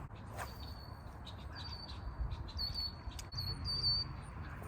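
A small bird chirping over and over, short high notes every half second or so, over a steady low rumble.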